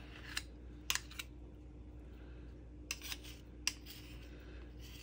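Two metal spoons clicking and scraping against each other as sticky bread dough is scooped off them, a scattering of short sharp clicks.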